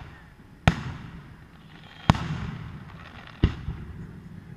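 Aerial fireworks shells bursting: three sharp booms about a second and a half apart, each followed by a rolling echo, the middle one trailing off longest.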